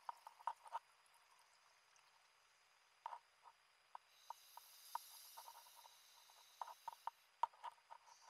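Faint underwater sounds of a scuba dive picked up through a wrist-mounted camera's housing: scattered soft clicks and knocks, and a soft hiss lasting about a second and a half past the middle.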